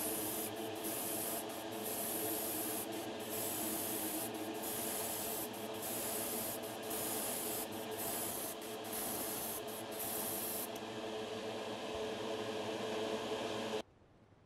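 Airbrush spraying paint onto a small plastic model part: a steady hiss with brief breaks about once a second, over the steady hum of the air compressor. The hiss thins about eleven seconds in, and everything cuts off suddenly near the end.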